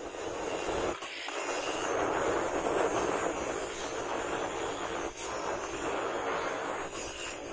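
Angle grinder with an abrasive disc grinding the edge of a forged steel machete blade: a steady, hissing grind of disc on steel, dipping briefly twice, about one second in and about five seconds in.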